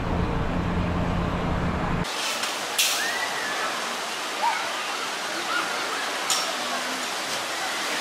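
Steady rushing of water pouring down twin water-slide flumes into a splash pool, with distant voices and shouts of a crowd and a couple of brief splashy hisses. For the first two seconds a steady low hum comes before the rushing starts.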